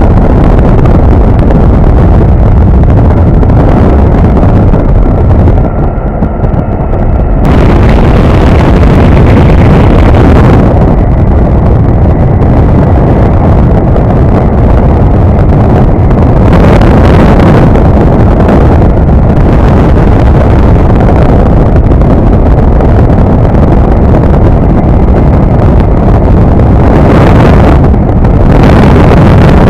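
Wind buffeting the microphone in the open cockpit of a Quik GT450 flexwing microlight in cruise flight, with its Rotax 912 engine and propeller running steadily underneath. Loud and rough, swelling in gusts several times.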